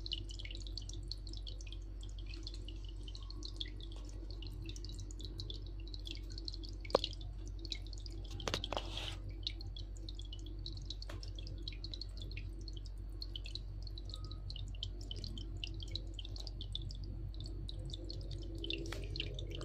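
Aquarium sponge filter bubbling and dripping, a steady stream of small water ticks over a low steady hum, with a couple of sharper clicks midway.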